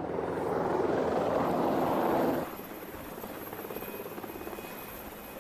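Z-20 helicopter's rotor and engines running, loud for the first two seconds or so, then suddenly quieter and steady, with a fast rotor beat.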